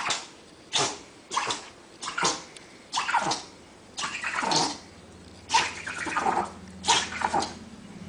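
A small dog making a quick series of short, breathy vocal noises, about one or two a second, each sharp and over in a fraction of a second.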